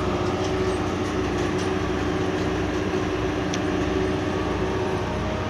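Marine travel-lift crane running steadily as it hoists a boat out of the water on slings: a constant mechanical drone with a steady hum.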